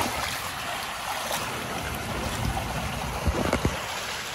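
Shallow water sloshing and splashing around a person's waders as she moves about in it, with a few low thumps a little past three seconds in.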